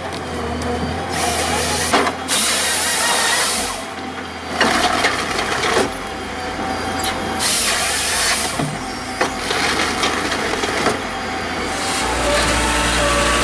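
Heavy wood-cutting machinery running under a steady engine drone, with several loud hissing bursts of a second or so as it cuts; near the end a deeper, steadier machine drone takes over.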